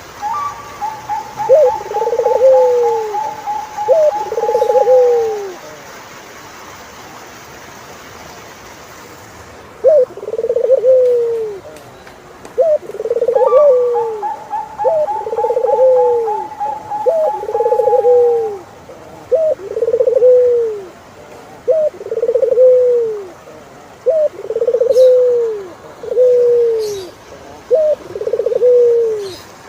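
Turtledove cooing: a string of two-part coos, a short note and then a longer falling one, about every two seconds, with a pause of a few seconds in the first half. Twice, at the start and about 13 seconds in, a faster run of higher repeated notes lasts several seconds.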